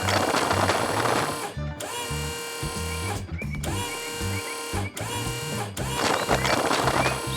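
Animated-cartoon background music with a bouncy bass line, overlaid twice by a burst of rattling noise: once in the first second and a half and again about six seconds in.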